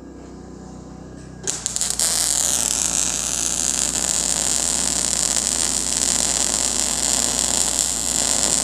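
Wire-feed welder arc on quarter-inch steel plate: a faint electrical hum, then about a second and a half in the arc sputters and catches, and from about two seconds in it crackles steadily as a weld bead is run.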